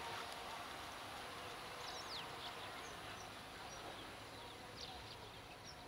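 Faint outdoor ambience: a steady hiss with scattered short bird chirps and whistles, more of them in the second half.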